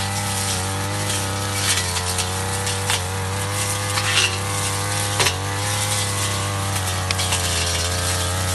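Ogawa backpack two-stroke brush cutter running at high speed under load, its pitch wavering as the cutting head chops through thick brush. Sharp ticks and snaps come now and then as stems are struck.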